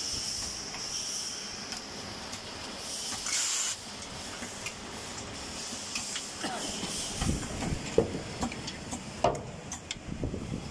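CNC lathe running with coolant spraying: a steady hiss, with a louder burst of hiss about three seconds in. Scattered clicks and knocks follow in the last few seconds.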